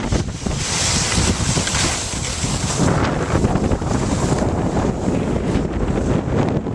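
Wind rushing over the microphone of a camera carried by a moving skier, with the hiss of skis sliding over snow. The high hiss is strongest during the first three seconds.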